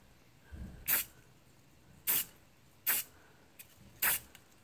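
Aerosol spray paint can hissing in four short bursts, about a second apart, as quick touch-up passes of paint.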